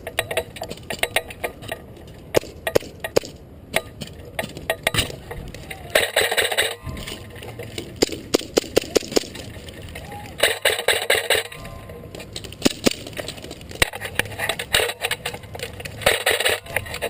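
Airsoft gunfire: scattered single sharp shots or BB impacts throughout, with three rapid full-auto bursts of about a second each from electric airsoft guns, a few seconds apart.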